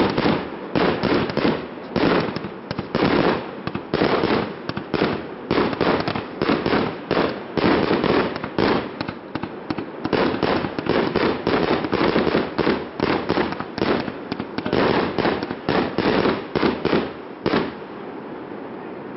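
Fireworks display: a rapid barrage of aerial shell bursts, about two or three bangs a second, that stops about a second and a half before the end and leaves a low steady hiss.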